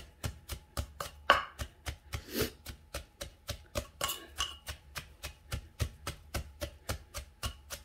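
Wooden pestle pounding dried chillies, garlic and shallots in an earthenware mortar, an even run of knocks roughly three a second.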